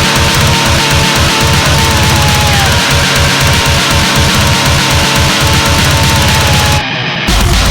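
Loud, aggressive heavy-metal-style music with fast, driving bass and drums; it drops out briefly near the end, then comes back in heavier.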